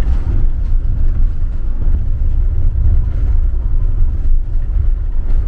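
Motorhome driving on a rough, potholed motorway: a heavy low rumble of road and engine noise that rises and falls unevenly as it runs over the broken surface.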